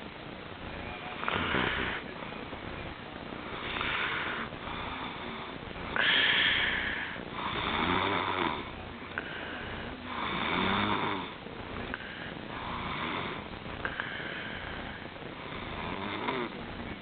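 Snoring: a noisy breath about every two seconds, some with a low rattling vibration.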